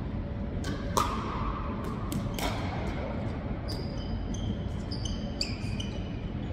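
Pickleball rally: several sharp pops of paddles hitting the plastic ball and the ball bouncing on the hardwood floor, echoing in the gym, the loudest hit about a second in. Short high squeaks of sneakers on the court follow in the second half.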